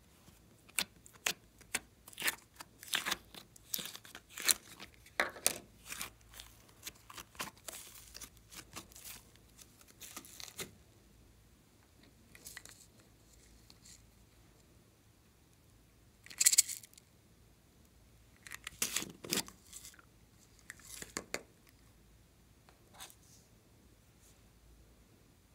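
Glossy slime peeled out of a plastic tub and dropped into a glass dish: a dense run of sticky crackling and popping clicks over the first ten seconds, then a few separate short crackles.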